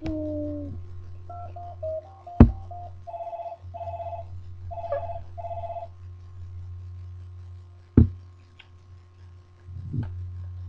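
Electronic ringing tone: a few short stepped notes, then four short, evenly spaced beeps. Two sharp knocks, the loudest sounds, land about two and a half and eight seconds in, over a steady low hum.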